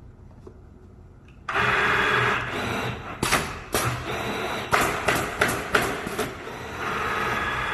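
Pneumatic automatic canvas stretching and stapling machine running its cycle: a loud burst of compressed-air hiss about a second and a half in, then a quick series of sharp clacks from the air cylinders and staplers, and more air hiss near the end.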